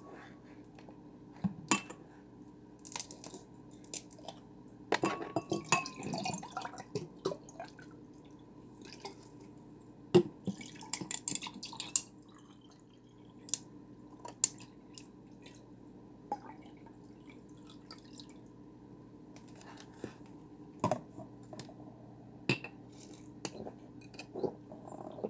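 A Gatorade sports drink being handled and drunk: sharp clicks and knocks of the bottle and cup, and short splashes of liquid, with quiet gaps between.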